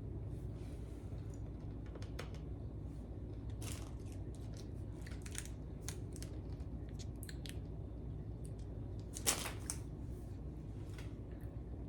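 Plastic candy wrapper being handled and torn open: scattered crinkles and small clicks, with one sharper snap about nine seconds in.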